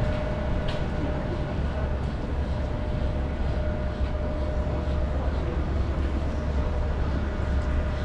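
Outdoor city ambience: a steady low rumble with a faint constant hum and a few light clicks.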